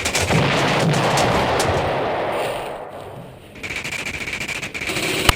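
Airsoft guns firing on full auto in rapid bursts. The fire dies down about three seconds in, then picks up again.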